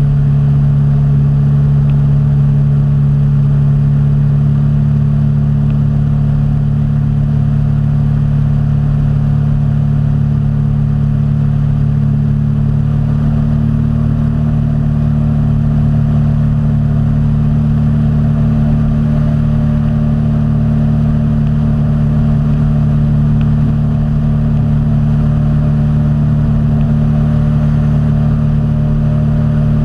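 Steady drone of an aircraft's engine in flight, with rushing air. The pitch steps up slightly about halfway through.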